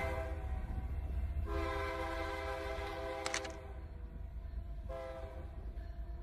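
A horn sounding a held chord of several steady tones in blasts: one ending just after the start, a long one from about a second and a half in, and a short one near the end, over a steady low rumble, with the whole slowly fading.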